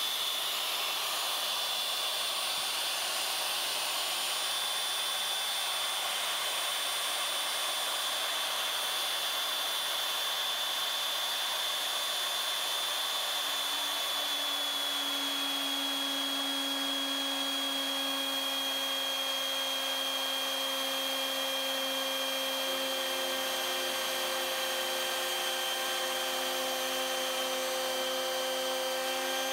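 CNC router spindle running at about 19,000 RPM while a 3/16-inch end mill mills a slot in sheet metal: a steady high whine over the cutting noise, with lower steady tones joining about halfway through.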